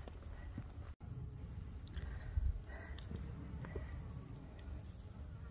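An insect, cricket-like, chirping in runs of short high chirps about four or five a second with brief pauses, over a low rumble.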